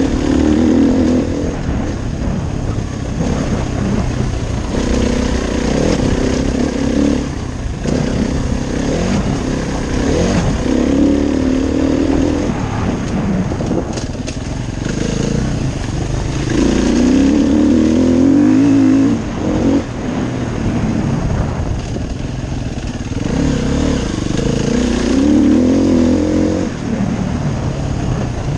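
KTM enduro dirt bike engine running under load, revving up and easing off again and again as the rider works the throttle.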